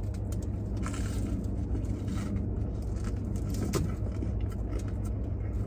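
Low, steady hum of a parked car heard from inside the cabin, with scattered short clicks and rustles of a sandwich being eaten and its paper wrapper handled.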